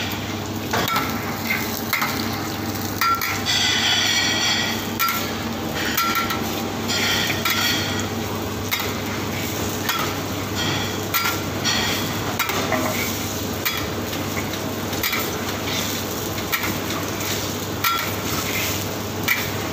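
Eggs sizzling in hot oil in a wok, while a metal spatula scrapes and taps against the pan with irregular clinks.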